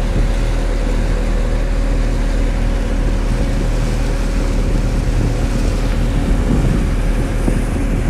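A 60 hp outboard motor running steadily as the boat cruises, with wind noise on the microphone.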